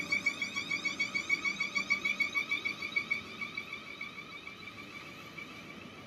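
An electronic warning alarm pulsing rapidly, about five or six times a second, fading away over the first few seconds, with the low rumble of a departing electric train underneath.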